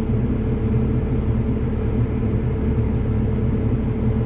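John Deere 7800's six-cylinder turbo diesel engine running steadily, an even deep drone with no change in pitch.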